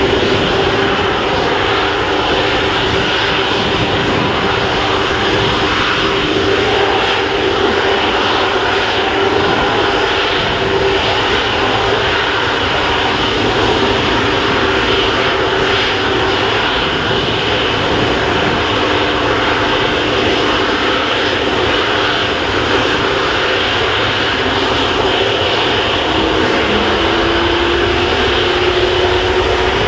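Airbus A330-243F cargo jet's Rolls-Royce Trent 772B turbofans running steadily at low taxi power, a loud whine over a rumble. One tone rises slightly near the end as the engines spool up a little.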